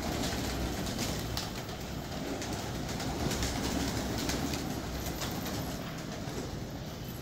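A flock of fancy pigeons flapping their wings as they take off and land, with many quick wing claps, and pigeons cooing.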